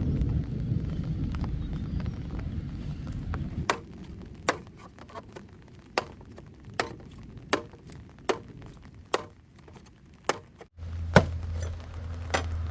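Sharp, evenly spaced chopping strokes on bamboo, about one a second. They follow a few seconds of heavy rain noise.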